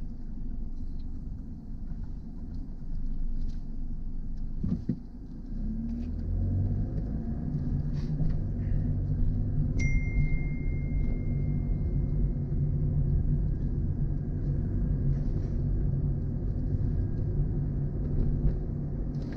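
Car cabin noise while driving: a low road and engine rumble, with a steadier engine hum setting in about six seconds in.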